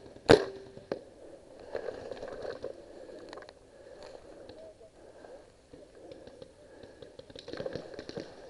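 A paintball marker fires a sharp shot just after the start, with a short ring after it, then a fainter click about a second in. After that come quieter scraping and rustling sounds of gear and movement.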